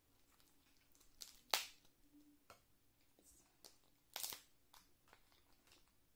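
Cooked lobster shell cracking and tearing as it is pulled apart by hand: two sharp snaps, about one and a half and four seconds in, with small crackles between.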